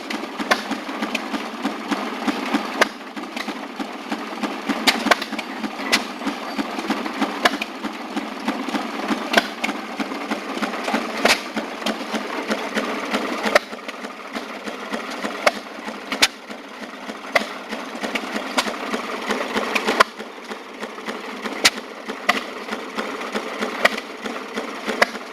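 Maytag two-stroke gasoline engine on an early-1930s washing machine running steadily, with a rapid chatter and sharp clicks standing out every second or two.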